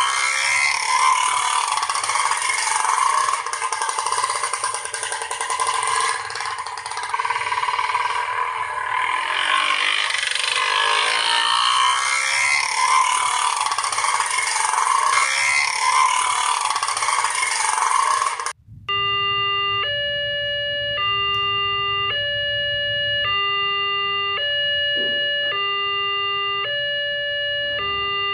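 Bajaj auto-rickshaw's two-stroke engine running with an uneven, rattly note; about two-thirds of the way through it cuts off abruptly and a railway level-crossing alarm starts, an electronic two-tone chime alternating between a low and a high tone about once a second.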